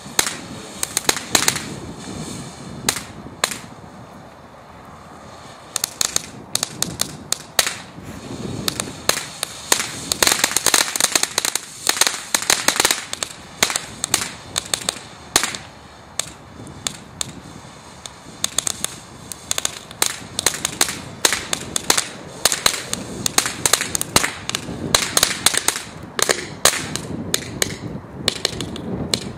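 Cannon 'Flying Ants' firework fountain burning with a hiss and rapid, irregular crackling pops. The crackle thins out briefly a few seconds in, then comes back denser, thickest about ten seconds in and through the last third.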